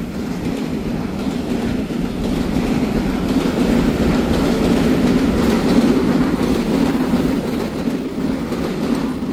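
Taiwan Railway EMU900 electric multiple unit passing close by: a steady, loud rumble of wheels and running gear on the rails as the cars go past.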